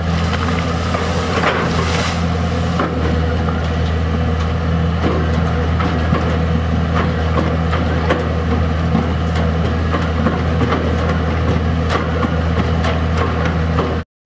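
Diesel engine of a Komatsu PC200 long-arm excavator running steadily while it works, with occasional sharp clicks and knocks over it. The sound cuts off abruptly near the end.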